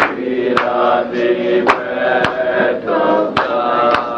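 Chanted singing with held notes, over a steady beat of sharp percussive strikes about twice a second.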